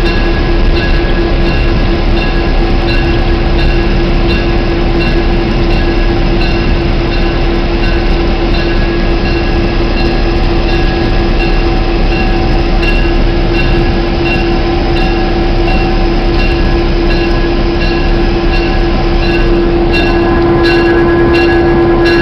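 Diesel locomotive running steadily while rolling slowly through the yard, heard from aboard as a loud, steady engine hum over wheel and track noise. A quick rapid clicking joins near the end.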